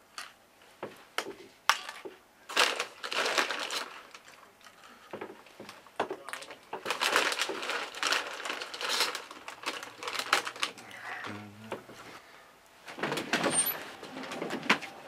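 Crinkling of a foil snack-chip bag as a hand rummages in it, in three main spells of rustling with small crackles between.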